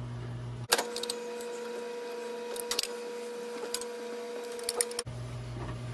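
A 13 mm wrench tightening flange bolts and nuts: a handful of sharp, irregularly spaced metallic clicks and clinks over a steady hum.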